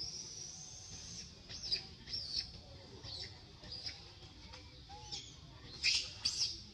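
A run of short, high-pitched squeaks and chirps. It opens with one longer, slightly rising call, followed by scattered brief chirps, and the two loudest calls come close together near the end.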